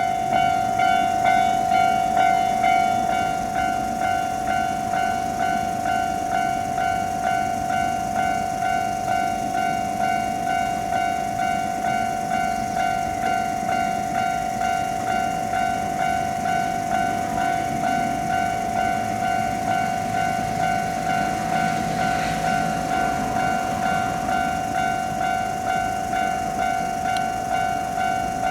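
Japanese railroad crossing warning bell ringing its steady 'kan kan' at about two strikes a second. A low rumble rises and fades in the middle.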